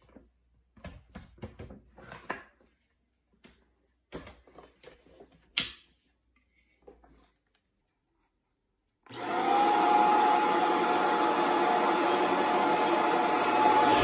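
A few light plastic clicks and knocks as the Shark Stratos stick vacuum is handled, then about nine seconds in its motor switches on and runs steadily with a high whine.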